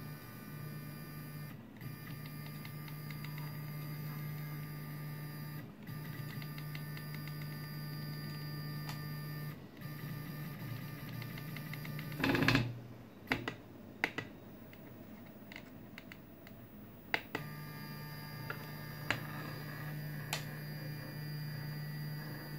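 Original Prusa 3D printer's Z-axis stepper motors running with a steady whine as the knob drives the Z carriages up toward the top stoppers, with a few brief breaks. About halfway through the motors go quiet for several seconds, opening with a loud short burst and followed by a few sharp clicks, then start again.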